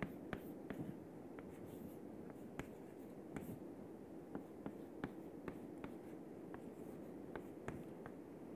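Chalk writing on a chalkboard: a faint run of light, irregular taps and short scrapes as symbols are written, over a low steady room hum.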